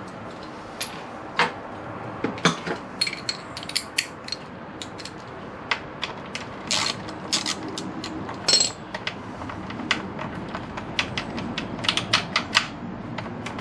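Metal hand tools clinking, and a ratchet wrench clicking in short irregular runs as the rear-set footpeg bracket bolts are wound in on a motorcycle.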